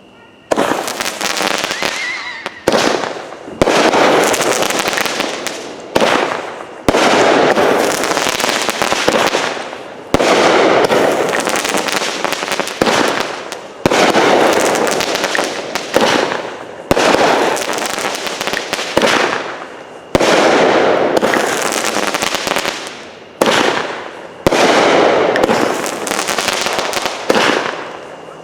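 A 200-gram, 19-shot firework cake (Phantom Fireworks' Midnight Monsoon) firing shot after shot. There are about fifteen shots, each a sudden bang followed by a long wash of crackling from the crackling comets that fades before the next shot.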